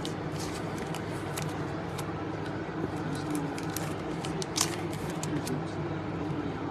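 Light clicks and rustles of trading cards being handled, with one sharper click about four and a half seconds in, over a steady background hum.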